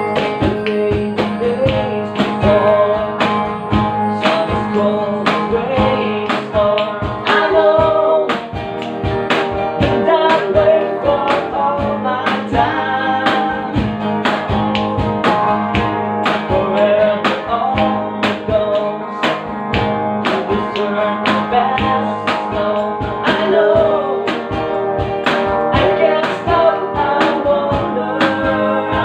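Music: a sung cover of a country-rock song, a voice singing the melody over guitar and a steady drum beat.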